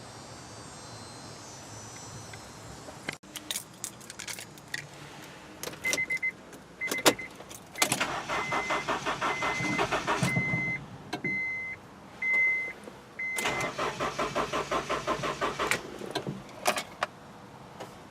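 A 2000 Honda CR-V's four-cylinder engine cranked by the starter twice, a few seconds each time, turning over in an even rhythm but never catching: the engine cranks but won't start. A warning chime beeps about once a second through the first attempt, with a few clicks before it.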